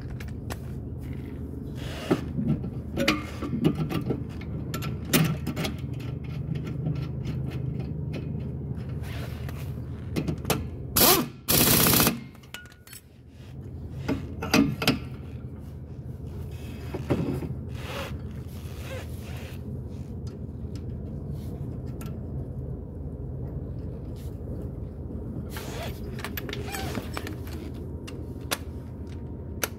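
Metal parts and tools clinking and knocking as a golf cart's front spindle and hub are fitted onto the kingpin, over a steady low hum. About eleven seconds in comes one loud burst of noise about a second long.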